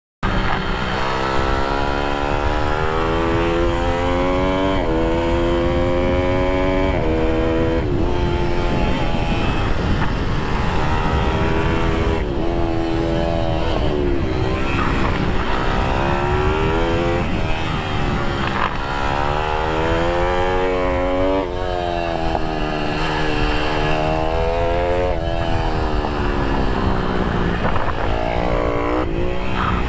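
IMR GP20 pitbike engine revving hard on a lap, its pitch climbing through each gear and dropping back at every shift or lift for a corner, over and over.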